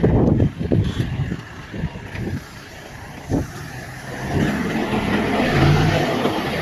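Heavy earth-moving machine's diesel engine running, with a few knocks in the first second and one more about three and a half seconds in, then the engine getting louder and working harder from about four and a half seconds in.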